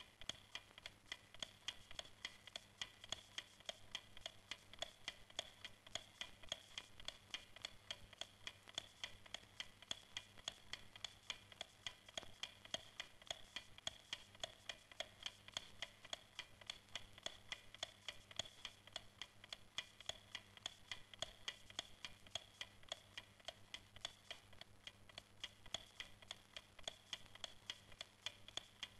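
Faint, regular ticking, about three ticks a second, over a steady low hum.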